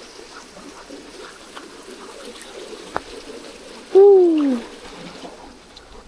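Floodwater of a swollen burn rushing under a stone bridge, a steady hiss of water. A single sharp click comes about three seconds in, and about four seconds in a woman makes a short wordless vocal sound that falls in pitch, the loudest moment.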